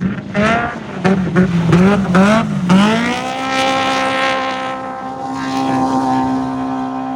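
Off-road race vehicle's engine revving up and down several times in quick succession, then climbing and holding at a steady high pitch from about three seconds in.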